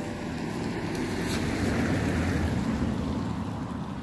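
Wind buffeting the microphone outdoors: a low rushing rumble that swells toward the middle and eases near the end.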